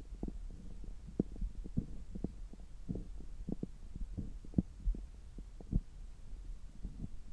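Stomach gurgles heard through a stethoscope on the belly: irregular short low pops and bubbling, several a second, over a steady low hum.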